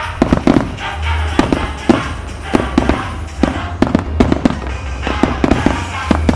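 Fireworks going off in a rapid barrage: sharp bangs, several a second, over music playing for the show.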